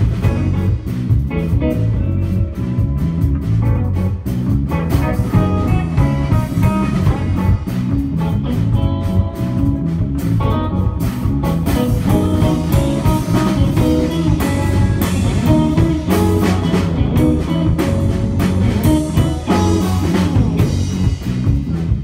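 Live instrumental band of electric guitar, electric bass and drum kit playing: the guitar carries a moving melodic line over a steady bass and drum groove with frequent cymbal hits.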